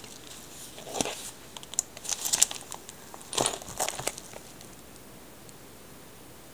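Rustling and crinkling of a CD wallet's plastic disc sleeves being handled, in three short clusters of crackles and clicks over the first four seconds, then only a faint hiss.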